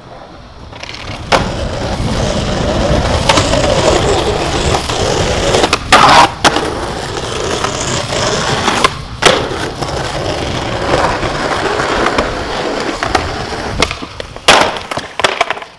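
Skateboard wheels rolling over rough concrete, with several sharp clacks of the board along the way. Near the end comes a cluster of loud impacts: the landing of an ollie off a ledge going wrong, the rider slamming and the board clattering on the concrete, a slam the skaters blame on a pebble under the wheels.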